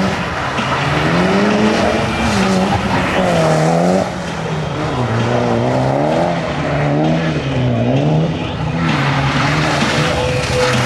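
Mitsubishi Lancer Evolution rally car's turbocharged four-cylinder engine revving hard, its pitch rising and falling every second or two as the car slides sideways through tight turns on the wet tarmac.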